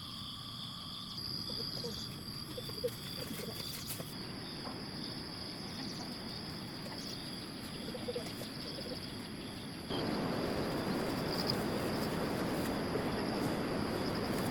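Outdoor rural background with a steady high chirring of insects and a few short, faint calls. About ten seconds in it changes suddenly to a louder, even hiss-like background noise.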